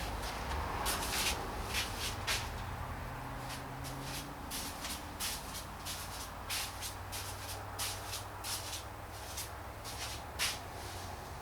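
Irregular light shuffling, rustling and clicking, like someone moving about and handling things in a workshop, over a steady low hum.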